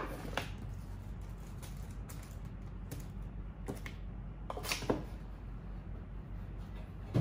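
Scattered light clicks and taps of small garden items, plastic plant markers among them, being picked up and handled around a wooden caddy on a glass table, with a sharper knock just under five seconds in. A steady low hum runs underneath.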